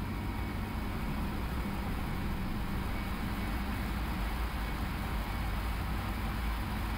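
Steady rush of engine and airflow noise inside an airliner cockpit during the climb after takeoff.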